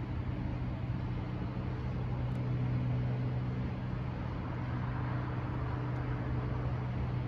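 A steady low mechanical hum, like an idling engine or machinery, over a constant background hiss of outdoor noise.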